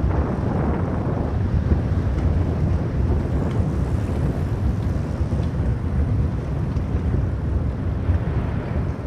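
Steady wind noise rumbling on the microphone of a camera mounted on a moving Mango velomobile, mixed with the velomobile's rolling road noise.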